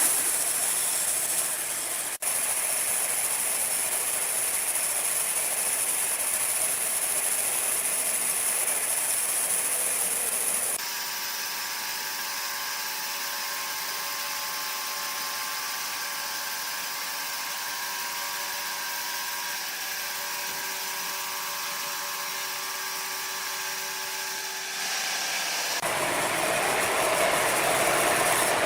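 Woodworking machinery running steadily. The sound changes abruptly about 11 s in, from a hissy noise to a steadier hum with several fixed tones, and again near the end, when it gets louder and noisier.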